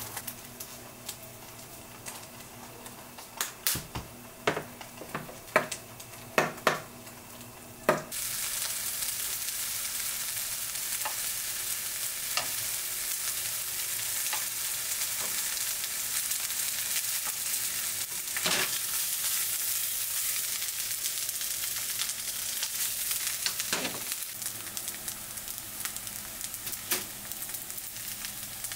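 Knife and spoon clicking and scraping on a cutting surface while cod roe is scraped from its skin; about eight seconds in, a steady loud sizzle of thick fried tofu and asparagus frying in oil in a pan, with a few clicks of a turner against the pan.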